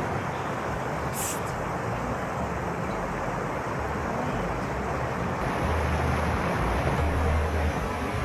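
Wind rumbling on the microphone over a steady outdoor noise, the low rumble swelling in gusts in the second half, with one brief high hiss about a second in.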